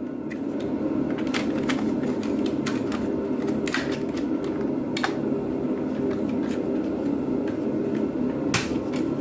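Irregular sharp plastic clicks and taps as the dishwasher's control-panel housing is handled and its retaining clips are worked loose, over a steady low hum.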